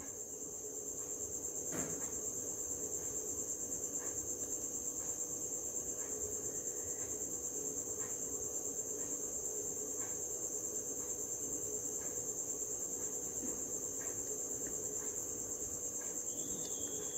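A cricket chirring steadily in the background, a continuous high pulsing trill. Underneath it runs a faint low hum, with a few soft taps.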